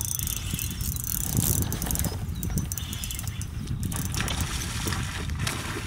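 Fishing reel being cranked, winding in line with a fast clicking whirr, under a steady low rumble.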